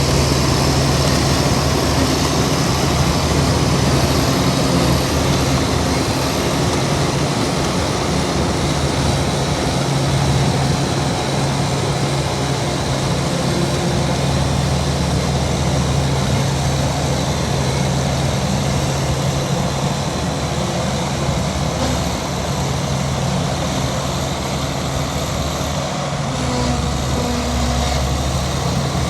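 Heavy diesel engine of earthmoving equipment running steadily with a constant low drone.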